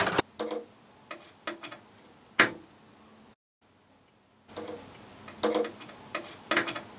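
Scattered sharp clicks and knocks of hand tools and metal parts being handled, irregularly spaced, with one louder knock a little over two seconds in. The sound drops out completely for about a second near the middle.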